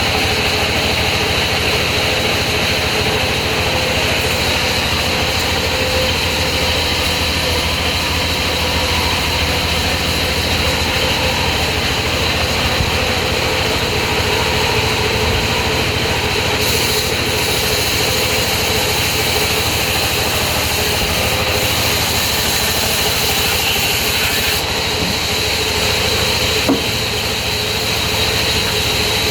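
Sawmill saw machinery running steadily: a continuous mechanical drone with a steady high whine. A single short knock comes near the end.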